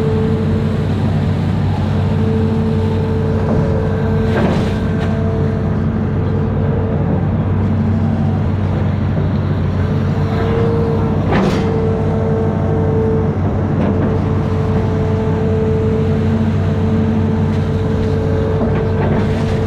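Amphibious excavator's diesel engine running steadily under work, with a steady higher whine over it. There are brief sharp knocks about four and a half and eleven and a half seconds in.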